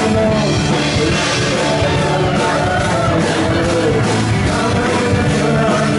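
Live band music played loud, with singing over a strummed guitar.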